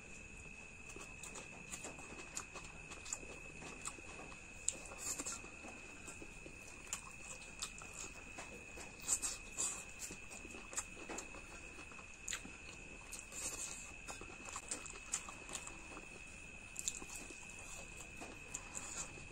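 A person eating a mutton and fish curry meal, with irregular wet smacking, clicking and chewing mouth sounds, a few louder bursts among them. A steady high thin tone runs underneath.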